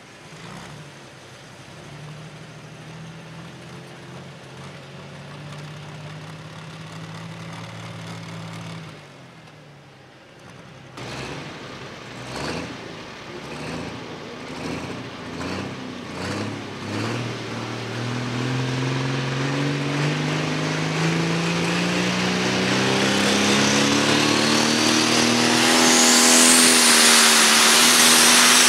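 Light pro stock pulling tractor engines: one runs steadily for the first several seconds, then an International 1066 pulling tractor's turbocharged diesel is blipped in short revs about once a second. From about two-thirds of the way in it is throttled up into one long rising run as it takes the load, growing loud, with a high turbo whistle rising near the end.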